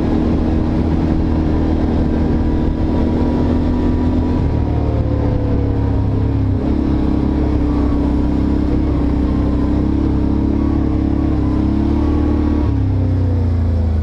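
ATV engine running at trail speed, heard from the rider's helmet, its note stepping up and down a few times as the throttle changes.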